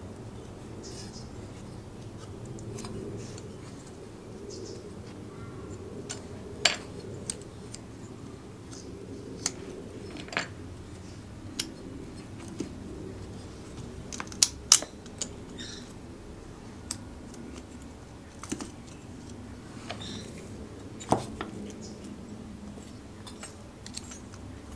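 Small metallic clicks and taps as the ignition coil and its wiring are handled and worked loose on a Kawasaki KF100 engine's aluminium crankcase. About a dozen scattered clicks, the loudest a close pair around the middle and one more near the end, over a steady low hum.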